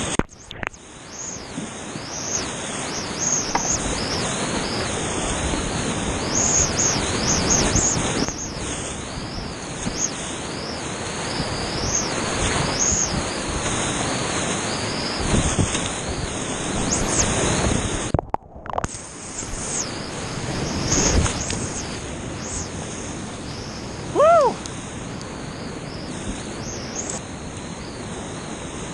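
Loud rushing whitewater and splashing as a creek kayak runs steep, rocky rapids, with the sound dropping out briefly twice. About 24 seconds in, a short pitched cry rises and falls above the roar.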